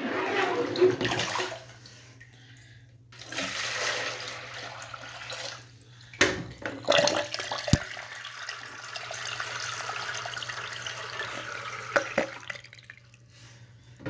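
Toilet flushing with a plastic bag in the bowl: water rushes in three spells, the last and longest a steady rush, with a sharp knock about halfway through.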